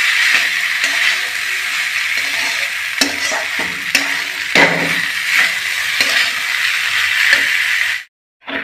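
Metal spatula stirring and scraping soaked poha in a metal kadhai over a steady sizzle of frying, with a few sharp scrapes and knocks against the pan. The sound cuts off suddenly near the end.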